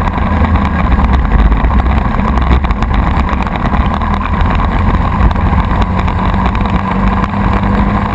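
Kart engine running steadily, heard from a camera mounted on the kart: the single-cylinder four-stroke Briggs & Stratton Animal of the Jr. 1 Animal class.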